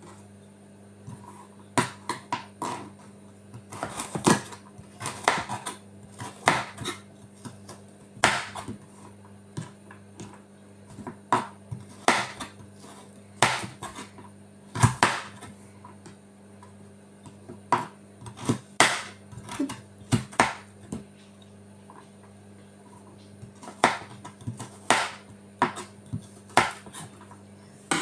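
Kitchen knife chopping carrots on a bamboo cutting board: irregular, noisy sharp knocks in quick runs, with short pauses between runs.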